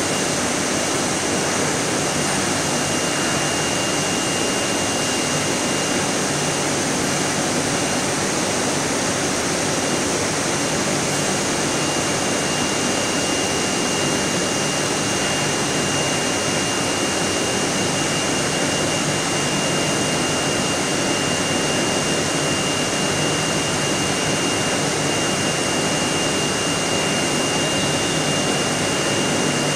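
Steady running noise of a polyethylene pipe extrusion line: an even rushing hiss with a thin, high steady whine over it and a low hum beneath.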